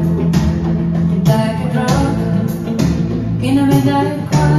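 A vinyl record playing on a Micro Seiki turntable through a Phase Tech AC-2 cartridge: a song with guitar and a singing voice over a steady beat.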